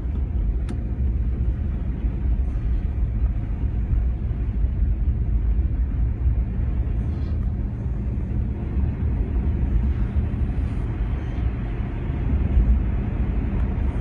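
Car driving on a snowy road, heard from inside the cabin: a steady low rumble of engine and tyres.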